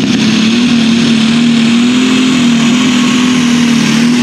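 International light limited super stock pulling tractor's engine running hard at a steady, high pitch under load as it drags the weight-transfer sled, the pitch wavering only slightly.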